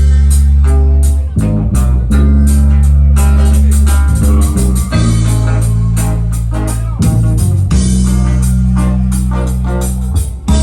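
Loud reggae music: a heavy bass line holding long notes that change every second or two, under short, evenly spaced plucked-guitar chops and a drum kit.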